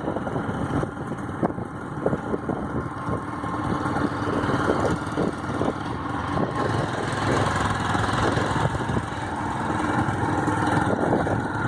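Motorcycle engine running on the move, with wind and road noise buffeting the microphone.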